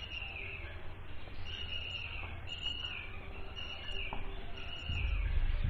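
A bird chirping over and over, short falling notes about once a second. There is a faint click about four seconds in, and a low rumble near the end.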